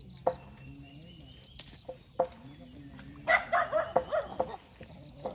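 Domestic chickens clucking in short calls, with a quick run of louder cackling about three seconds in, over a steady high buzz of insects.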